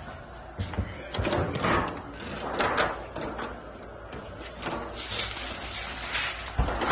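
Aluminium foil crinkling in a run of irregular rustling bursts as it is handled and pressed over disposable aluminium trays.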